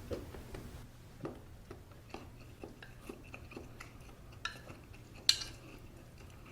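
Utensils clinking and tapping against a pot of army stew in a string of small, separate knocks, with one sharper, louder clink about five seconds in.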